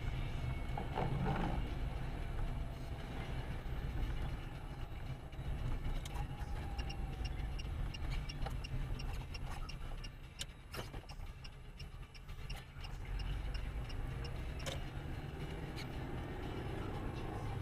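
Lada Kalina 2194 engine running, with a faint high rhythmic chirping, about three to four a second, for a few seconds in the middle: the noise the owner suspects is the alternator belt whistling.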